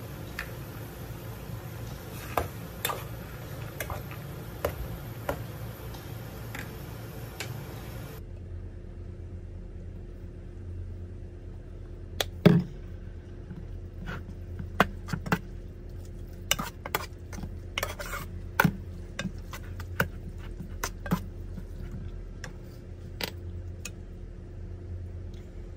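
A pot of ramen boils on a gas stove with a steady hiss and small pops. It then gives way to scattered clinks and taps of a metal spoon and chopsticks against the metal pot, with the loudest knock about twelve seconds in.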